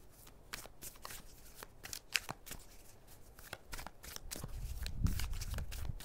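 Tarot cards being shuffled by hand: a run of irregular, quick card flicks and clicks, turning into a duller, lower rustle of handling near the end.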